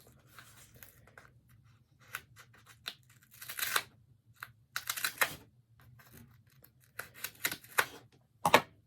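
Cardboard shipping box being torn and pried open by hand: irregular bursts of tearing and scraping, with short clicks between them.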